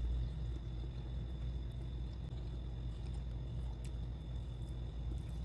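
Steady low background hum with a thin, steady high whine above it, and a faint click or two.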